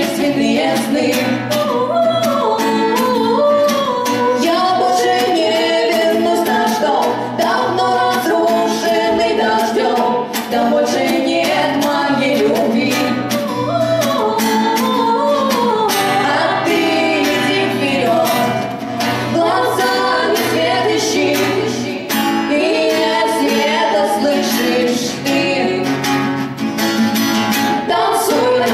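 Live song: female voices singing a melody over a steadily strummed acoustic guitar, amplified through the stage PA.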